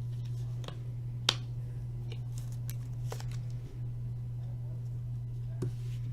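Trading cards and plastic card holders being handled: a few light clicks and taps, the sharpest about a second in, over a steady low electrical hum.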